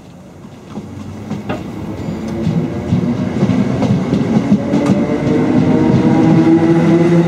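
Electric multiple-unit passenger train pulling away from the platform: a motor whine rising slowly in pitch and growing steadily louder as it accelerates, with clicks and the clatter of wheels on the rails.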